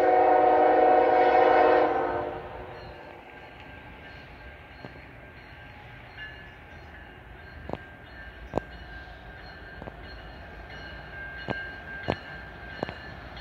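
Air horn of a freight train's lead locomotive, a GE ES44AC, sounding several tones at once in one long blast that cuts off about two seconds in. Then the quieter rumble of the approaching train, with a few sharp clicks.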